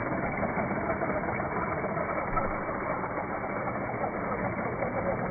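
Small electric motor of a remote-control toy car whirring steadily as the car drives in snow.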